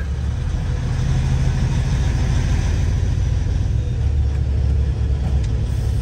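Semi-truck diesel engine running as the truck rolls slowly: a steady low rumble with a hiss over it.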